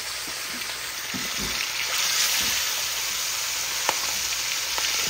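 Hassa (armoured catfish) frying in hot oil in a pot: a steady sizzle that grows a little louder about a second in, with a few light clicks of a utensil.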